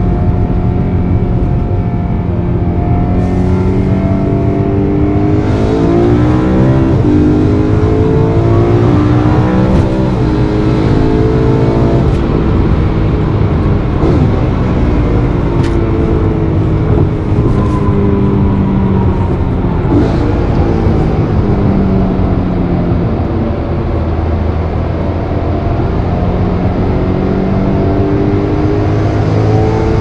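BMW E92 M3's naturally aspirated 4.0-litre V8, heard from inside the cabin while driving, its pitch rising and falling several times as the car accelerates and eases off, over steady road and tyre noise.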